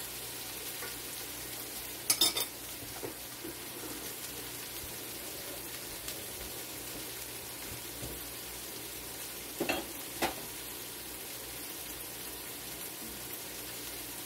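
Chicken and peppers sizzling steadily in a skillet on a gas stove, with a quick cluster of sharp clacks of a utensil against the pan about two seconds in and two more knocks near ten seconds.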